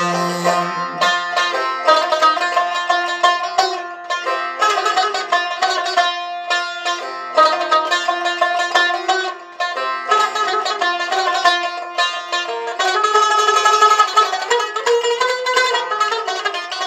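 Long-necked plucked lute played solo in a folk instrumental interlude: quick runs of plucked and strummed notes. A held sung note fades out about a second in.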